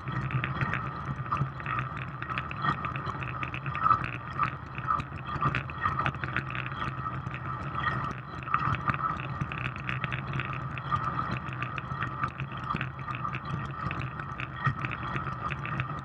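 Track bicycle at racing speed on a wooden velodrome: a steady rushing noise of tyres on the boards and air past the bike, with many small rattles from the bike-mounted camera and frame.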